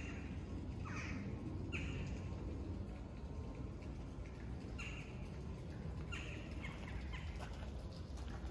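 A bird calling repeatedly outdoors, about eight short harsh calls spaced roughly a second apart, some sweeping down in pitch, with a pause of a few seconds in the middle. A low steady rumble runs underneath.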